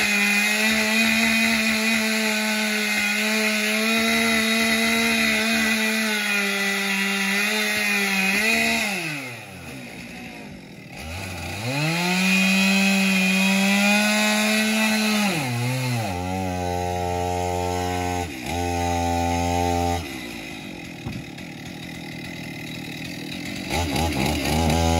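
A two-stroke chainsaw runs at full throttle, cutting into a fallen tree trunk. It drops off about eight seconds in and revs back up to cut again. After about fifteen seconds it settles to a lower, steady engine pitch, with brief stops.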